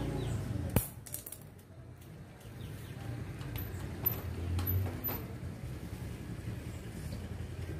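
A few sharp clicks and light clatters, one louder click about a second in and several more around the middle, over a low steady hum.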